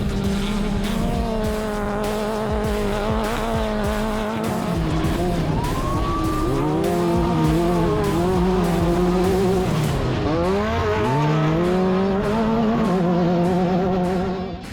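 Off-road race car engine running hard, its pitch dipping and climbing back up twice, under music with a steady beat. It drops away at the very end.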